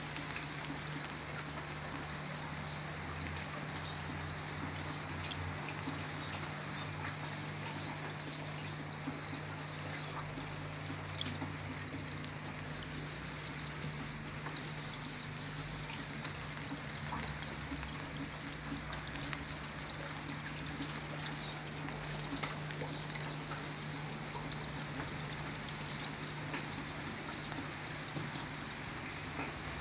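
Water trickling and dripping into a small garden pond: a steady splashing wash with many small drop ticks scattered through it, over a low steady hum.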